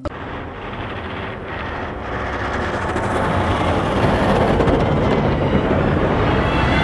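Water spraying onto a plastic toy as it is washed: a steady rushing noise that grows louder over the first few seconds and then holds.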